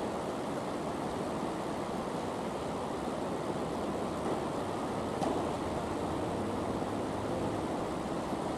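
Steady, even rushing room noise of an indoor tennis hall, with a faint single tap about five seconds in.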